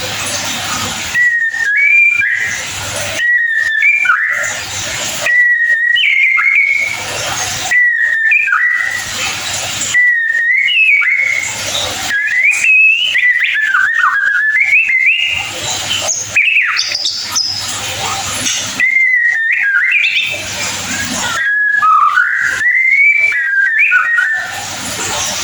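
White-rumped shama (murai batu) giving its ngeriwik call: short whistled phrases repeated every second or two, some held on one note and some gliding up and down.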